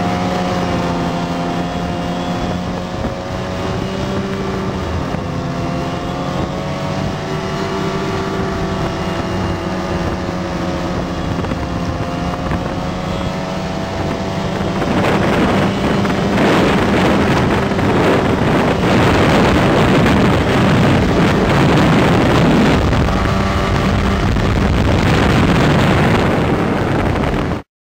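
Snowmobile engine running as it rides across the snow, its pitch rising and falling with the throttle. About halfway through it turns louder and rougher, with wind on the microphone, and it cuts off abruptly near the end.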